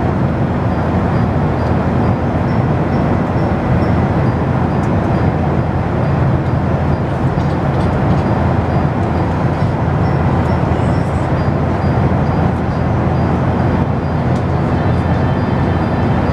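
Steady in-flight cabin noise of a Boeing 737-800: an even rush of airflow and engine sound heavy in the low range, with a faint steady high whine above it.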